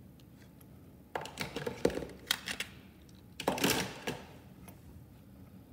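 Two short bursts of clicking and rustling handling noise, about a second in and again at about three and a half seconds, like objects being moved on a bench; otherwise quiet room tone.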